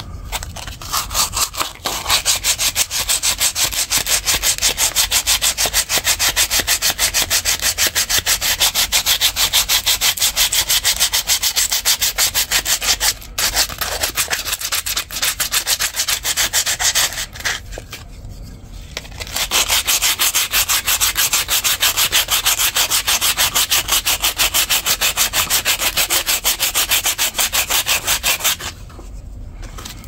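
80-grit sandpaper rubbed briskly back and forth by hand over wooden knife scales, rough-shaping the handle. The strokes come rapidly and evenly, with a few short pauses.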